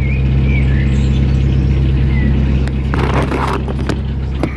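Narrowboat engine running steadily under way, a low even hum. A brief rustle comes about three seconds in.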